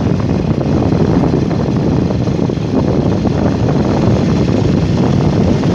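Honda Win two-stroke motorcycle running at a steady cruise, heard from on the bike with wind buffeting the microphone.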